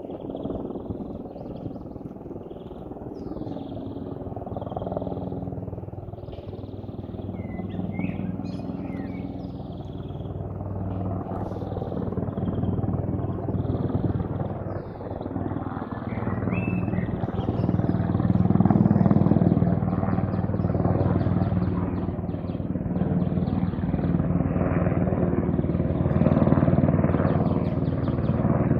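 Sikorsky UH-60M Black Hawk helicopter approaching overhead, its rotor and twin turboshaft engines growing steadily louder. Faint bird chirps sound above it.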